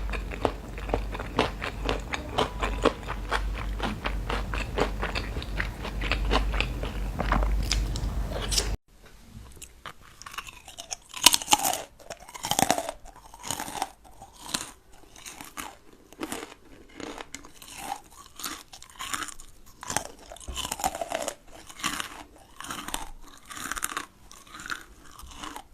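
Close-up crunching and chewing of food by one eater: fast and dense over a low hum for the first nine seconds or so, then after an abrupt change, slower separate crunches and bites.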